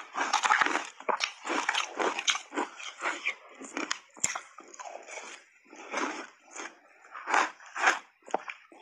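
Big bites of refrozen shaved ice coated in matcha powder being crunched and chewed: an irregular run of crisp crunches, about two or three a second, with one sharp crack about four seconds in.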